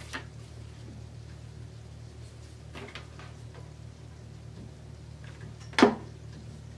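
Light handling rustle of ribbon, then a single sharp clack about six seconds in as a hot glue gun is set down on the cutting mat, over a steady low hum.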